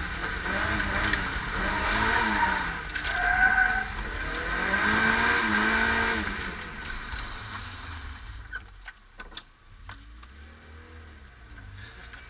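Mazda MX-5's four-cylinder engine revving up and down hard through a drift, with tyre squeal, heard from inside the cabin. After about eight seconds the revs fall to a lower, quieter run, with a few sharp clicks.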